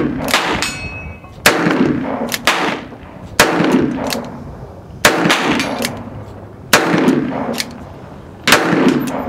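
Ruger Bisley-frame .45 Colt/.45 ACP convertible single-action revolver being fired: five loud shots about every two seconds, each trailing off in a short echo, with fainter reports between them.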